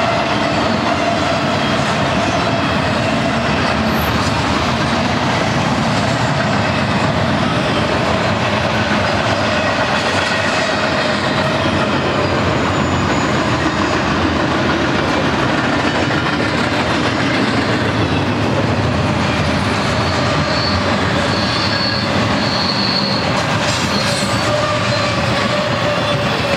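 Freight train's double-stack container cars and trailer-carrying flatcars rolling past: a loud, steady rumble of steel wheels on rail, with faint thin squealing tones from the wheels.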